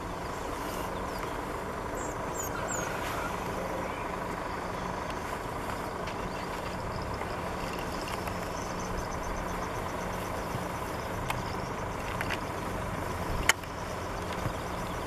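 Vehicle engine idling with a steady low hum. Faint high chirps come a couple of seconds in, and there is a sharp click near the end.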